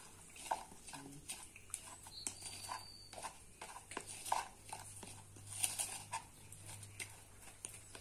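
Sawdust being mixed with melted candle wax in a container: irregular soft scrapes, rustles and taps, over a faint steady hum.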